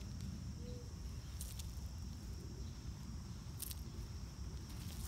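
Outdoor ambience: a steady high-pitched insect chorus over a low rumble, with a few light ticks about a second and a half in and again past three and a half seconds.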